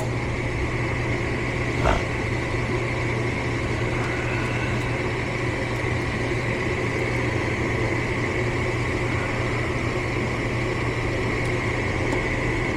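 Furnace motor running with a steady hum and a thin high whine over it; a light click about two seconds in.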